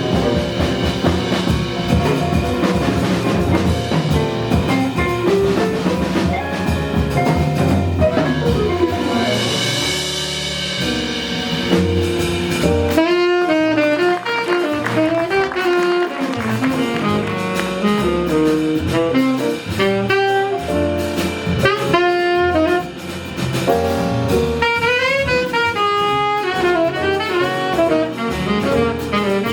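Live jazz combo playing, with a saxophone carrying the lead line over bass and drum kit; a cymbal swells up about ten seconds in before the melody stands out more clearly.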